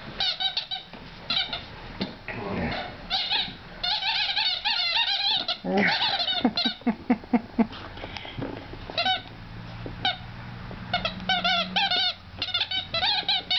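A squeaky chicken dog toy squeaking over and over in quick runs of shrill squeaks as a small dog bites and chews it.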